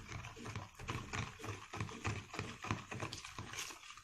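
Plastic spoon stirring dish soap and salt in a small bowl: quick rhythmic scraping and knocking against the bowl, about four strokes a second.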